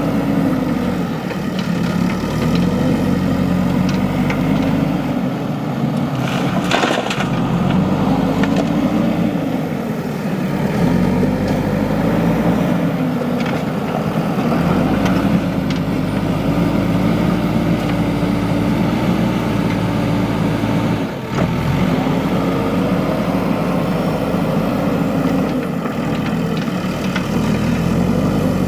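JCB 3DX backhoe loader's diesel engine running under load, its pitch rising and falling repeatedly as it works. A brief knock about seven seconds in.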